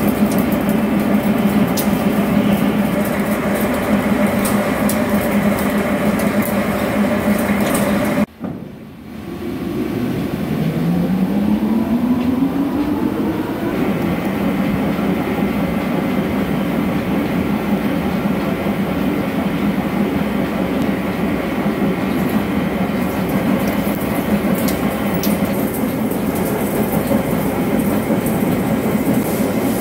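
CNC vertical lathe turning a large steel disc: a steady machining drone with a strong low hum and scattered light ticks. About eight seconds in the sound cuts out abruptly, then a whine rises in pitch over a few seconds before the steady running returns for the finishing cut.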